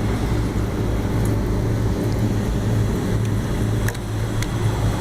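Steady low hum of running rooftop air-conditioning machinery, with a few sharp light clicks of metal as a new blower belt is worked onto its pulleys.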